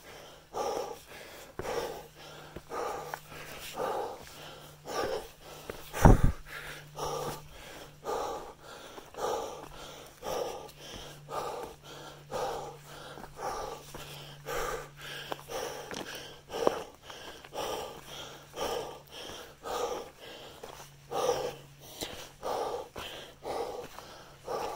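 A hiker's heavy breathing while climbing a trail: short, regular breath sounds about three every two seconds, with one loud thump about six seconds in.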